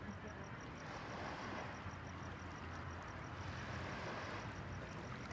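Steady, even hum of distant city traffic across the water, with a high, fast pulsing chirp repeating about five times a second.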